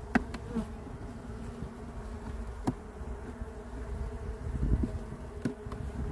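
Honeybee colony humming steadily from an open hive, with three sharp clicks of a metal hive tool against the wooden frames as they are pried and shifted.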